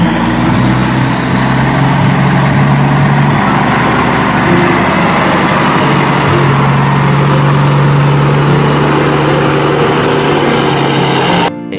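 A large truck engine running steadily with a low hum. It cuts off suddenly near the end.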